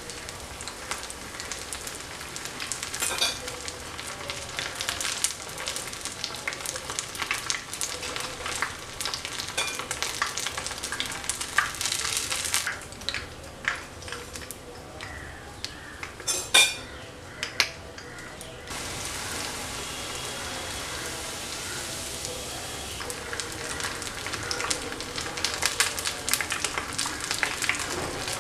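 Thread-coated paneer rolls deep-frying in hot oil: a steady sizzle full of fine crackling, with a slotted metal spoon clicking against the pan now and then. The sizzle drops for a few seconds in the middle, then comes back.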